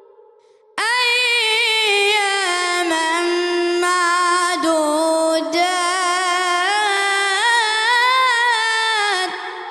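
A boy's voice chanting Quran recitation in a drawn-out melodic style into a microphone. One long held phrase starts about a second in, its pitch rising and falling in ornamented turns, then trails off in echo near the end.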